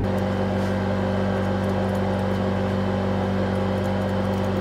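A steady motor hum, with a few faint snips of grooming shears trimming long dog coat.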